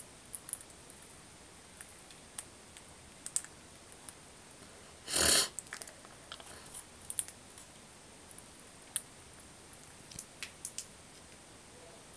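A budgerigar and a yellow-sided green-cheeked conure cracking and husking seed with their beaks from a person's palms: scattered small, sharp clicks, irregular and a few at a time. About five seconds in comes one short, loud harsh sound.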